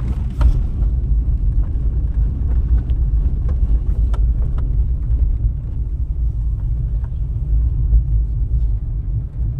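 Steady low rumble of a moving vehicle, with a few light clicks and knocks.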